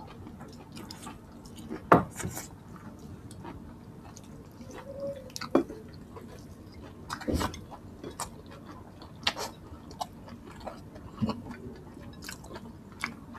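Close-miked eating sounds of two people eating rice, pork and greens by hand: soft chewing and mouth sounds with scattered sharp clicks, and a few louder short smacks or clinks, the loudest about two seconds in.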